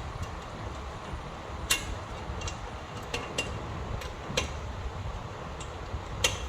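Metal tools clinking and tapping while working on a car's brakes: several sharp, separate clicks scattered irregularly, over a low steady rumble.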